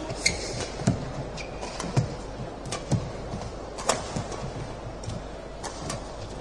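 Badminton rally: rackets striking the shuttlecock with sharp hits about once a second, over a low steady hum of the arena hall.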